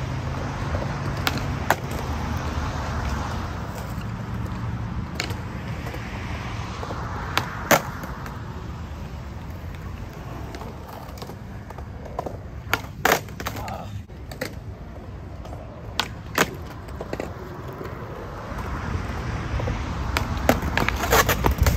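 Skateboard wheels rolling on concrete with a steady low rumble. Several sharp clacks of the board hitting the ground come at intervals.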